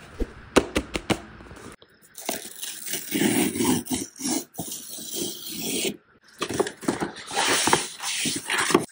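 A FedEx cardboard envelope being handled and torn open along its tear strip: a few sharp taps and crinkles in the first second or so, then long stretches of paper tearing and rustling as the strip comes away and a hand reaches inside.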